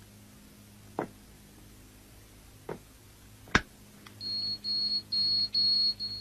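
A few sharp clicks or knocks, then, from about four seconds in, an electronic beeper sounding a fast run of short, high, single-pitched beeps, about five in a row.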